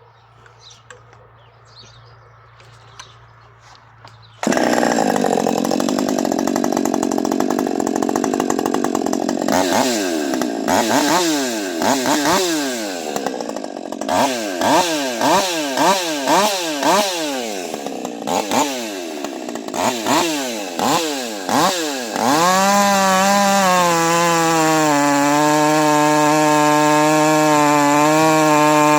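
Husqvarna 550 XP Mark II two-stroke chainsaw comes in suddenly about four seconds in, running fast. From about ten seconds it is revved up and down repeatedly, then from about twenty-two seconds it is held steady at full throttle.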